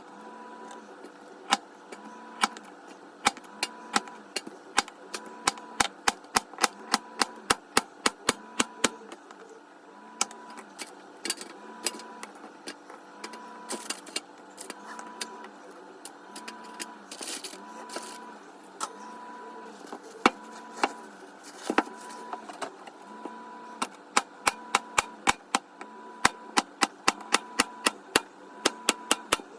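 Many sharp clicks and taps, often in quick runs of several a second, with short pauses between runs, over a faint tone that pulses about once a second.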